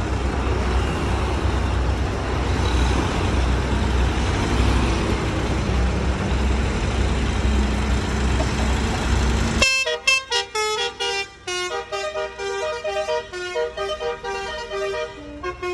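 Heavy vehicle rumble of engine and road noise. About ten seconds in it cuts abruptly to a bus's Basuri telolet multi-tone horn playing a quick tune of changing notes.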